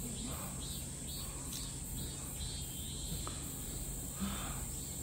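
A steady, high-pitched drone of insects singing in the summer trees, with a faint rapid pulsing above it that stops about three seconds in.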